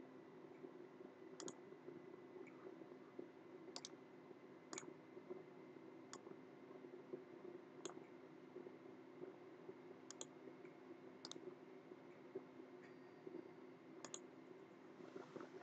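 Computer mouse clicking: about eight short, faint clicks spread out, several in quick pairs, over a low steady hum.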